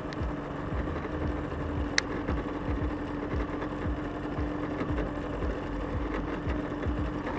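A steady low mechanical hum, with irregular low knocks a few times a second and a single sharp click about two seconds in.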